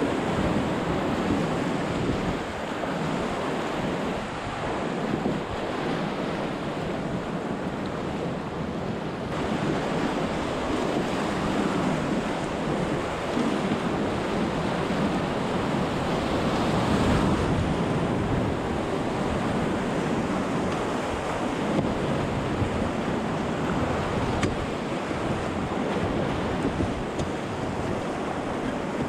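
Whitewater rapids rushing and splashing around a cataraft's inflatable pontoons, a steady churning roar of water, with wind buffeting the microphone.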